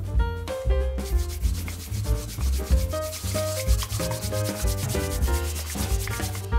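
A wooden honey dipper scraping rapidly round the inside of a small glass as a dressing is stirred, in a fast, even run of strokes that starts about a second in and stops shortly before the end. Background music plays underneath.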